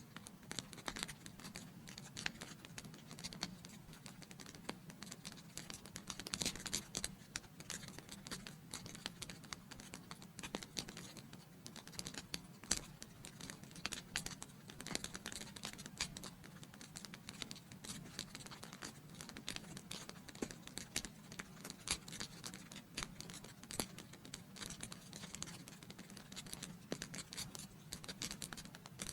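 Wood fire in a fireplace crackling: dense, irregular sharp snaps and pops over a soft steady hiss.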